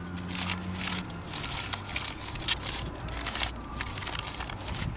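A sheet of white paper being crumpled and crinkled in the hands: a steady run of irregular crackles.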